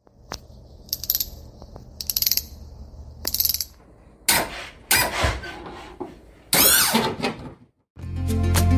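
Logo-intro sound effects: a click, then three short crackling electric buzzes like a flickering neon sign, followed by three loud swooshes, the last falling in pitch. Music with a steady beat starts near the end.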